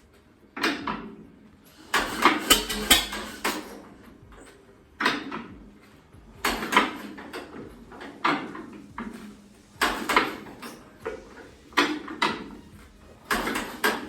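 1938 Massey Harris Pacemaker engine trying to start, giving a string of irregular sharp bursts a second or two apart, some bunched together, rather than running steadily. It is not firing on all cylinders, which the owner puts down to poor plug leads.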